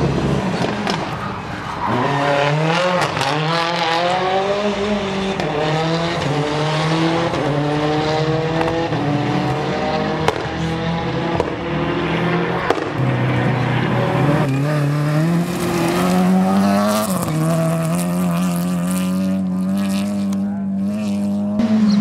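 Rally car engines revving hard under acceleration, the pitch climbing and dropping back again and again as the cars shift through the gears.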